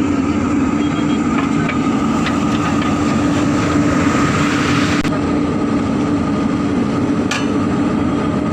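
Excavator's diesel engine running steadily with a constant hum. A hiss builds for a couple of seconds and cuts off sharply about halfway through, and a few light clicks sound.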